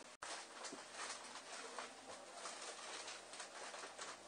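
Quiet indoor room tone with a few faint soft rustles and ticks, just after an abrupt edit cut.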